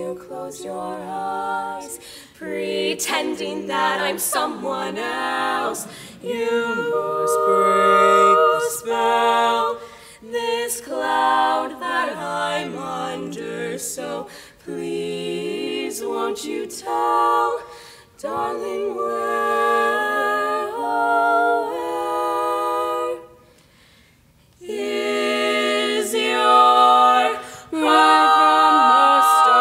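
Female barbershop quartet singing a cappella in four-part close harmony, phrase after phrase, with a short break about three-quarters of the way through before the voices come back in and hold a long chord.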